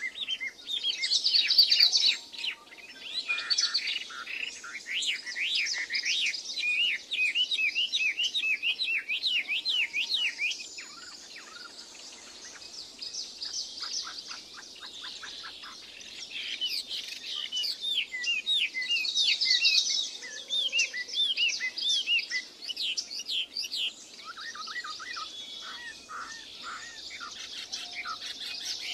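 Songbirds singing and chirping, with fast runs of clear, rising-and-falling notes, several birds overlapping; a lower-pitched run of notes comes near the end.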